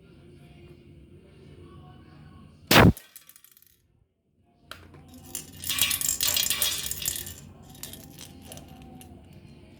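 A spring airsoft pistol fires once with a sharp snap about three seconds in. About two seconds later comes a burst of metallic rattling and scraping lasting a couple of seconds.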